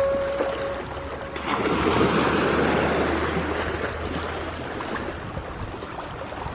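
Calm sea water lapping and washing in the shallows at the shoreline, with some wind on the microphone. The washing swells about a second and a half in, then eases.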